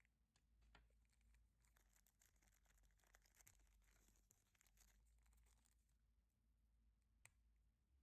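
Near silence: faint scattered crackling and ticks over a low steady hum, with one sharper tick about seven seconds in.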